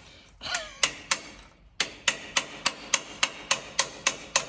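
Evenly spaced sharp metallic clicks, about three to four a second, from a hand tool working on metal.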